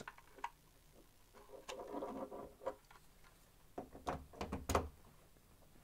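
Quiet handling of a plastic ceiling-mount Wi-Fi access point after its power plug is pushed in: a soft rustle, then a few light clicks and knocks about four to five seconds in as the unit is picked up and turned over.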